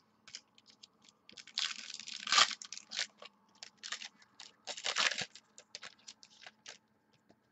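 Baseball card packs being handled and opened: crinkling wrapper and cards rustling and sliding against each other, in many short bursts with two longer tearing stretches, about a second and a half in and about five seconds in.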